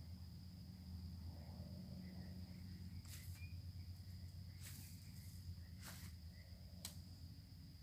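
Crickets trilling at night: one steady, high-pitched insect tone over a low hum. A few short chirps come and go. Between about three and seven seconds in, four sharp knocks and rustles come from the angler handling the fishing rod in the bankside grass.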